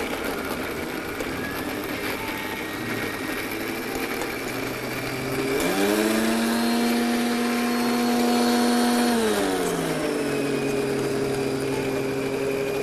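Electric countertop blender running. About five seconds in, its motor speeds up to a higher, louder whine, holds there for about four seconds, then winds back down to its lower speed.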